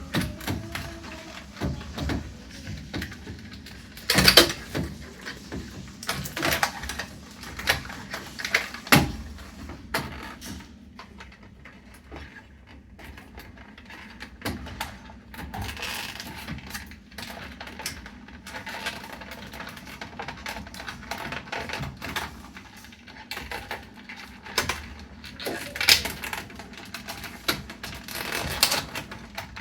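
Irregular clicks, knocks and clatter of plastic and metal parts being handled while a washing machine is taken apart, with a few louder knocks about four and nine seconds in and near the end.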